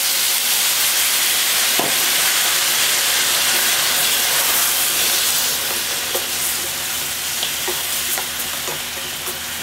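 Kelp stock poured into a hot pan of potatoes coated in seasoning paste, hissing and sizzling steadily. After about five seconds the sizzle eases a little, and a wooden spatula gives a few light taps as the potatoes are stirred.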